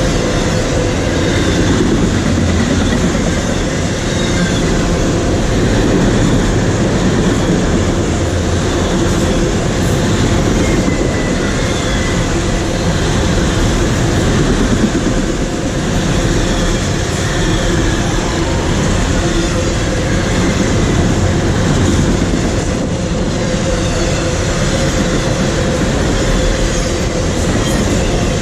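Train cars rolling past on the track: a loud, steady noise of wheels and cars going by.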